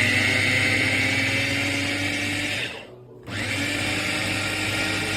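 Wancle 350 W electric food chopper's motor running with a steady whine in two bursts, stopping for about half a second near the three-second mark before starting again.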